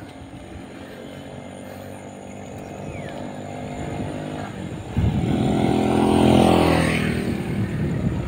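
Motor vehicle engine running and growing louder. It swells suddenly about five seconds in, is loudest around six seconds, then eases off, like a vehicle passing close or accelerating.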